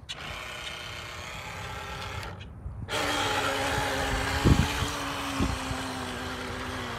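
Small electric motor of an RC boat whining, overvolted on a 3S battery when it was built for 1S. It cuts out briefly, then comes back louder at full throttle from about three seconds in, with water hiss, a slight sag in pitch and a couple of low thumps. The boat is struggling and not getting up to speed.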